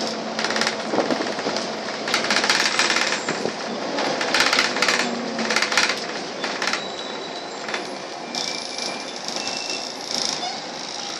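Cabin noise inside a Volvo double-decker bus on the move: a steady drone of engine and road, with bursts of clattering rattles from the bus's interior fittings, loudest two to three seconds in and again around five seconds in. A high steady whine comes in near the end.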